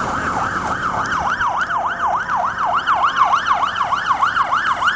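Emergency vehicle siren sounding a fast yelp, its pitch sweeping up and down about four times a second.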